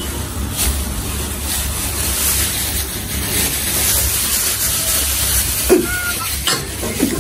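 Thin plastic bags crinkling and rustling as balls of garri (eba) are unwrapped by hand, over a steady low hum.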